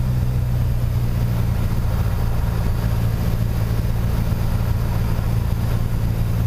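Piper PA-28 Warrior III's four-cylinder Lycoming engine and propeller droning steadily on final approach, heard inside the cockpit.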